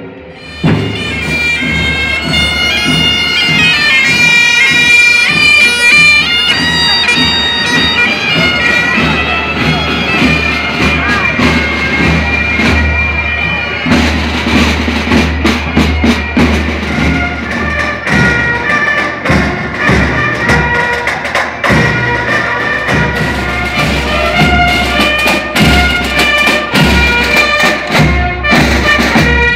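Bagpipes playing a marching tune: the chanter's melody over the steady drone of the pipes.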